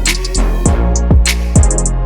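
Background music with a steady electronic beat: a kick drum about twice a second, sharp hi-hat and clap hits, and a sustained bass line.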